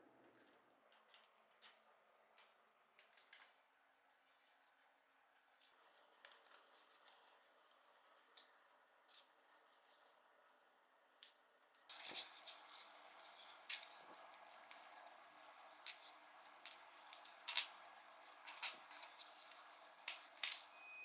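Small tools and metal parts of a miniature model car clicking and scraping as they are handled, in sporadic light ticks. From about twelve seconds in a steady scraping noise sets in, with the clicks coming thicker.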